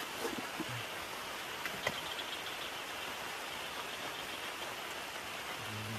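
Heavy rain falling steadily, an even hiss, with a single sharp click about two seconds in.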